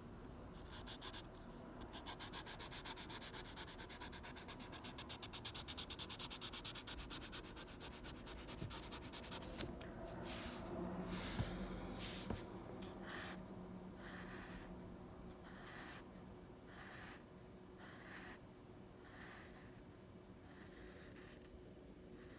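Drawing tool scratching on paper: a run of quick back-and-forth shading strokes, then slower separate strokes from about halfway through.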